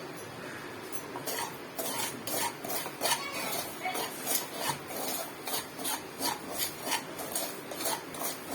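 A utensil stirring and scraping dry semolina around a metal tava in quick repeated strokes, about two or three a second, starting about a second in. The rava is being dry-roasted on low flame.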